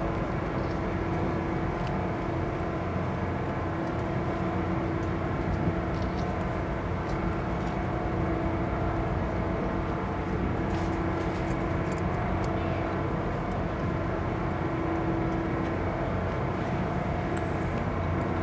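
Steady mechanical drone of a ship's engines and machinery running, a low hum with several steady tones held throughout.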